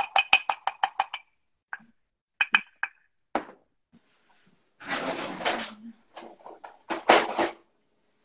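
Plastic measuring cup tapped rapidly against the rim of a ceramic mug, about ten quick ringing clinks in a second, knocking flour into the mug. A few scattered knocks follow, then two longer bursts of rustling noise later on.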